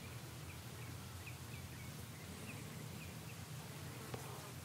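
Faint outdoor ambience: a small bird gives a quiet series of short, high chirps, irregularly spaced, over low steady background noise.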